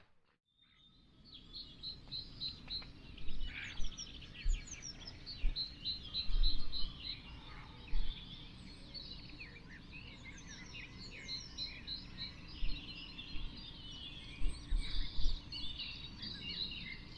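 Several songbirds singing, with short chirps and rapid repeated trills overlapping throughout, over a low steady background hum.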